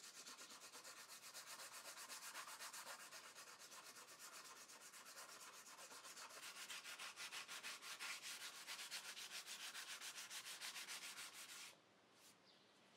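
Sandpaper rubbed by hand in quick, even back-and-forth strokes over a dried epoxy putty patch on a wooden table leg, sanding the repair smooth. The faint rasping stops abruptly about a second before the end.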